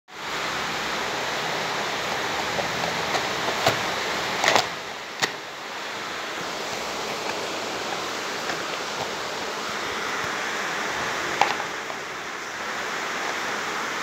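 A steady rushing hiss, with a few sharp clicks about four to five seconds in and once more about eleven seconds in.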